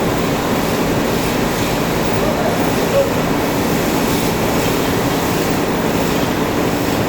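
Steady, dense noise of textile mill machinery running, with a faint constant low hum under it.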